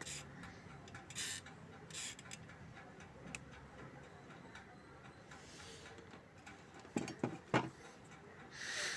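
A sewing machine foot pedal's cover being fitted back on and closed up by hand: short scraping rasps and light clicks, with three quick knocks about seven seconds in.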